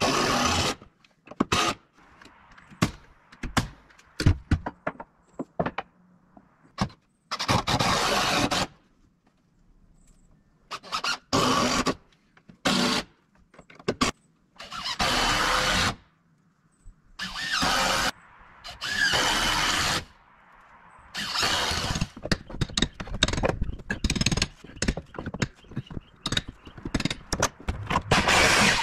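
Demolition work with repeated squealing and scraping, each about a second long, with sharp knocks and clicks between. This fits nails squealing as boards are pried off.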